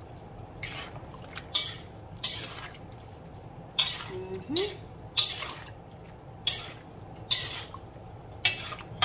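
Metal spoon scraping and clinking against a metal pan while stirring chunky diced vegetables, ground beef and shrimp, about ten separate strokes less than a second apart.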